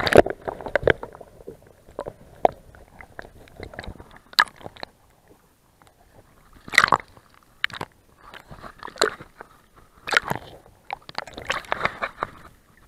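Sea water sloshing and splashing against a camera dipped at the surface, in irregular bursts with crackling clicks and short quiet gaps between them.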